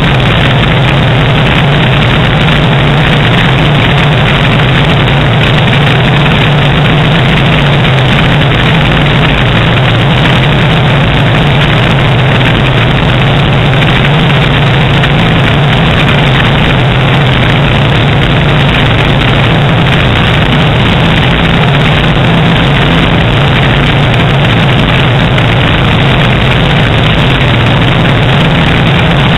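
Light single-engine airplane's piston engine and propeller droning steadily in cruise flight, a constant low hum under a rush of air, heard from a camera mounted outside under the wing.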